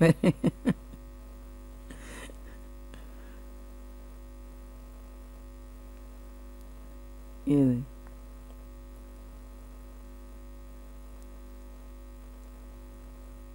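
Steady electrical mains hum made up of several fixed tones. There are brief voice sounds in the first second and once more about seven and a half seconds in.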